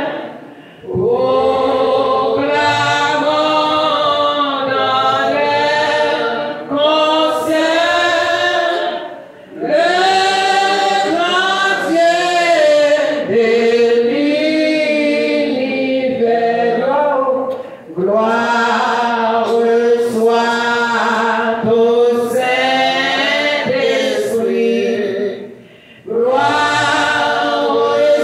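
A group of voices singing a hymn unaccompanied, in long phrases with a short breath about every eight seconds.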